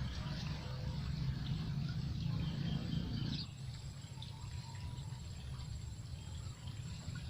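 Insects buzzing with a steady high-pitched whine, a second high whine joining about three and a half seconds in, and scattered bird chirps, over a low rumble that fades about halfway through.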